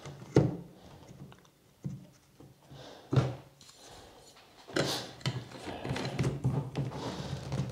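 Plastic blender cup and blade assembly being handled: a few separate knocks as the blade lid is set on the cup, then, from about five seconds in, a longer stretch of rubbing and rattling as the lid is screwed down onto the cup of dried celery pieces.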